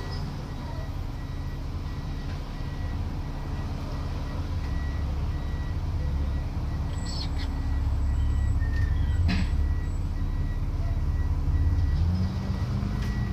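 Plaxton President double-decker bus heard from on board: its diesel engine drones steadily with a low rumble. There are a few sharp rattles or knocks about 7 and 9 seconds in. Near the end the engine note rises as it gains revs.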